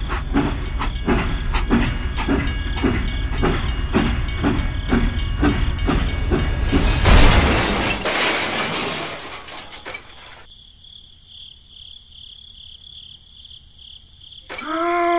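Battery-powered toy steam locomotive running on plastic track, chugging in even strokes about twice a second over a low rumble. About seven seconds in comes a loud burst of hissing, after which it goes much quieter with a faint steady whine. A short pitched sound comes near the end.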